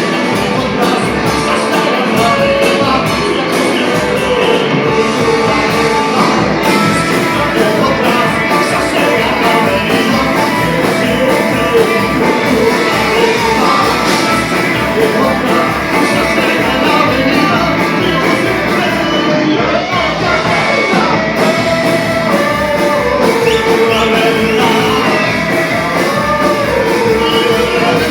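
Rock band playing live: a singer's voice over the full band, with a steady drum beat.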